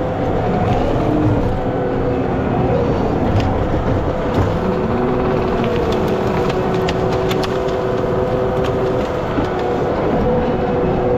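Skid steer's diesel engine running under load with a steady hydraulic whine as its front rake attachment pushes a log and brush. Scattered sharp clicks and cracks of wood and debris are heard.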